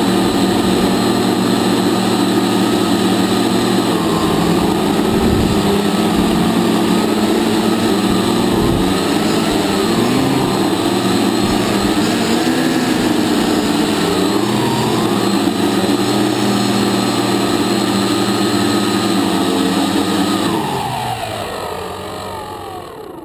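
Electric motors and propellers of a camera hexacopter buzzing loudly, heard from on board, their pitch wavering as the throttle changes. Near the end the motors spool down and the buzz fades out as it lands.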